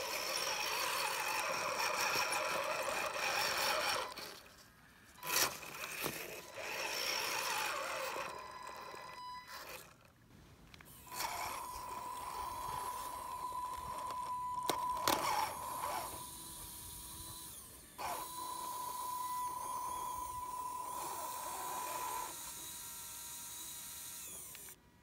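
Small electric motor whine from an RC4WD Trail Finder 2 scale crawler working up a boulder, starting and stopping. In two stretches of several seconds each it settles into a steady high whine as the winch reels the truck up the rock.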